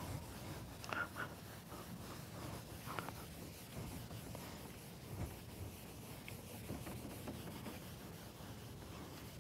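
Chalk being wiped off a chalkboard with a blackboard eraser: faint rubbing in repeated strokes.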